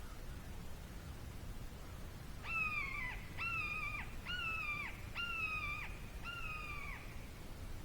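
An animal calling five times, about a second apart, each call a drawn-out note that drops in pitch at its end.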